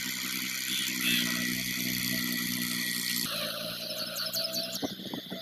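Tractor engine running steadily with a constant whine; about three seconds in the sound changes abruptly, and a few knocks follow near the end.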